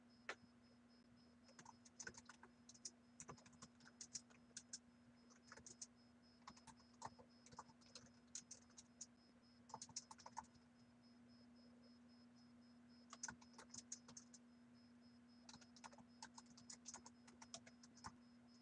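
Faint typing on a computer keyboard: runs of quick keystrokes, with a pause of about two seconds midway. A steady low hum runs underneath.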